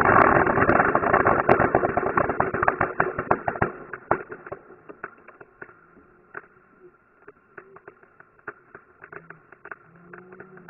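A 16,000-shot string of firecrackers going off, slowed to quarter speed: a dense, loud crackle of overlapping bangs thins out over the first four seconds as the string burns out, leaving scattered single pops.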